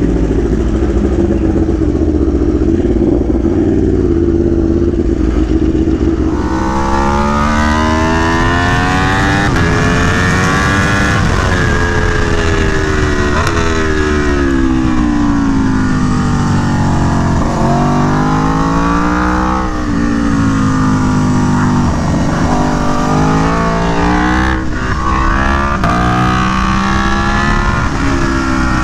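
Aprilia Tuono V4 1100 Factory's V4 engine through an SC Project CR-T exhaust, heard from on board under constant wind rumble. It holds a steady note for the first few seconds, then revs rise and fall again and again as the bike accelerates and slows through corners.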